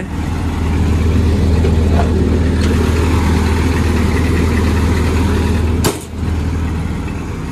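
Hitachi ZX170W wheeled excavator's diesel engine idling steadily, heard loud and close through the open engine compartment door. About six seconds in the door is shut with a sharp knock and the engine sound drops a little.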